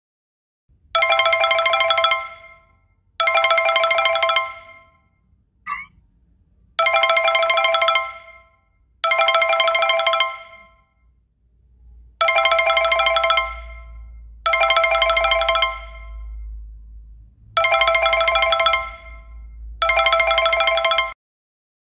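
TamTam Messenger call ringtone: a short chiming phrase that rings twice in quick succession, pauses, and repeats, four pairs in all.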